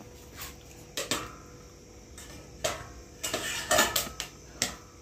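Scattered metallic clinks and knocks from a steel pan of freshly popped popcorn on a gas stove, as the pan is uncovered and the popcorn is turned with metal tongs. The strikes come irregularly, roughly one a second, and a few ring briefly.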